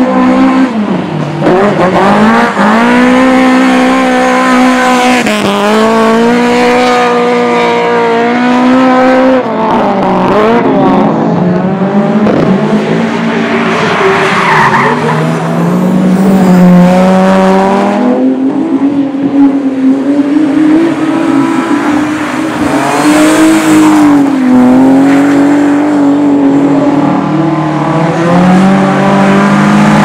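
Racing saloon cars, a Lada 2107 among them, running hard on a dirt track. The engine note climbs and drops back again and again as the revs rise and fall, with a rougher noisy patch near the middle.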